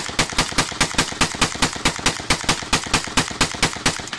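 Rifle firing a rapid, evenly spaced string of shots, about six a second and some two dozen in all, stopping sharply at the end.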